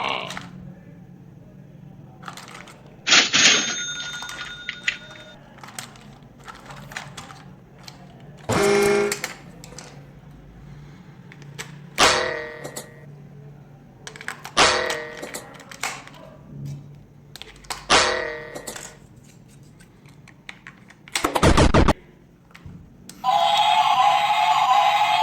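A string of separate short electronic sound effects, rings and tones with gaps between them, some starting sharply and fading away, ending in a steady buzzing tone that begins near the end.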